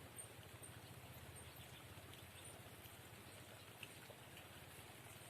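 Near silence: faint, steady outdoor background hiss with a few faint, high, short ticks.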